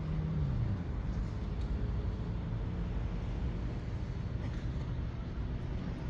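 Steady low engine hum over a background rumble, its pitch dropping slightly about half a second in and then holding steady.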